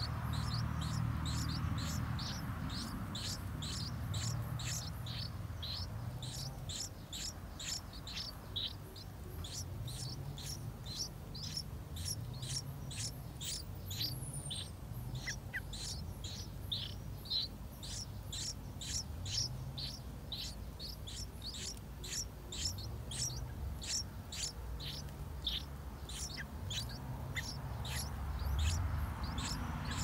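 Yellow-vented bulbul nestlings begging at the nest while being fed: a rapid string of thin, high chirps, about two to three a second, over a low steady background hum.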